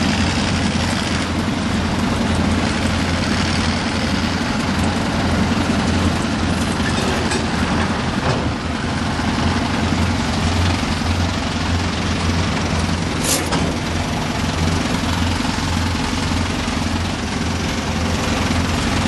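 Engine of a small Brookville industrial locomotive running steadily with a low hum. A brief high-pitched squeak about thirteen seconds in.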